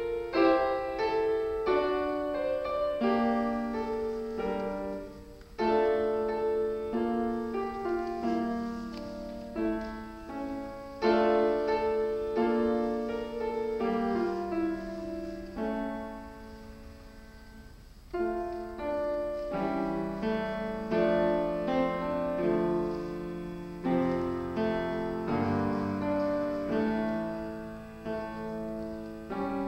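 A child playing a grand piano solo, a steady run of single notes and chords. About halfway through, a phrase dies away into a short pause before the playing resumes, and lower notes come in near the end.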